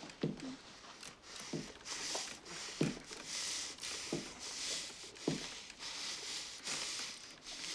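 A frightened man breathing hard and shakily, with short whimpers roughly every second and a bit.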